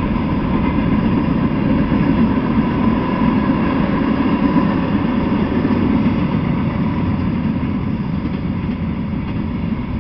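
Freight train cars rolling past on the rails: a steady, loud rumble of the wheels with a faint steady high tone running under it.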